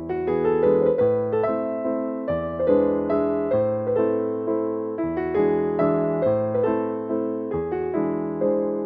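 Background music: electric piano playing a gentle melody over a bass line, notes struck and decaying. No sound of the CNC machine stands out above it.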